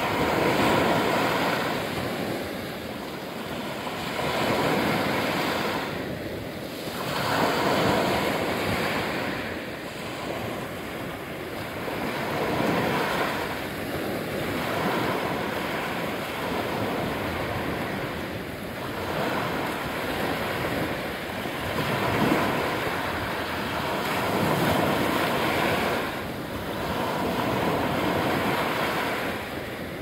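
Small sea waves breaking and washing up over a sandy shore, the surf swelling and easing every few seconds.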